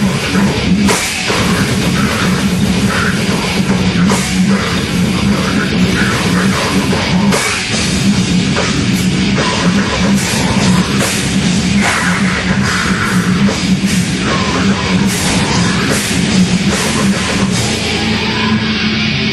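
Heavy metal band playing live and loud: distorted electric guitars and bass over a drum kit, with frequent cymbal crashes throughout.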